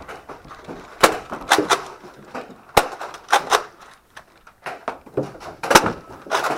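Nerf Rival blasters in a firefight: a string of sharp, irregularly spaced cracks of spring-powered shots and foam balls smacking into walls and furniture, with a short lull about four seconds in.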